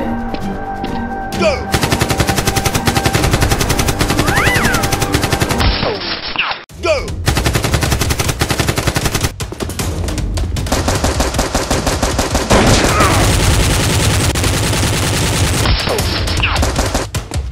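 Rapid automatic gunfire sound effects, long bursts of shots over action background music, with a brief break about six seconds in.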